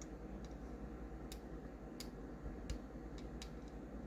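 Faint light clicks and ticks at irregular intervals, a few in each second or so: small metal parts of a folding knife being handled.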